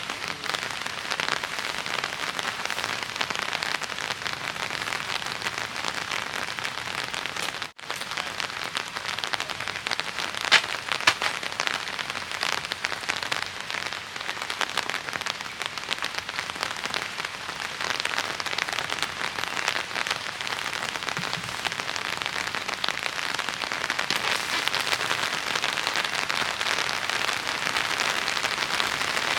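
Steady rain falling, with many individual drops ticking and a few louder single drop hits about ten to eleven seconds in.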